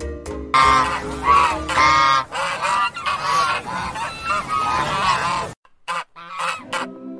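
Goose honking, a rapid run of loud repeated honks, breaking off briefly near the end before more honks begin.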